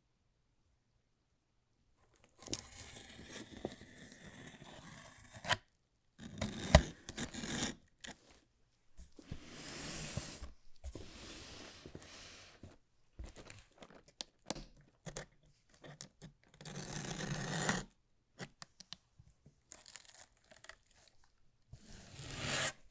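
Keyboard packaging being torn open and crinkled by hand, in a string of rustling bursts with short gaps, starting about two seconds in. A sharp knock stands out about seven seconds in.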